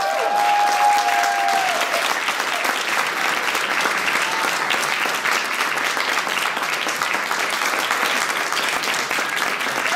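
Audience applauding steadily in a large room after the election results are announced, with a few voices calling out over the clapping in the first couple of seconds.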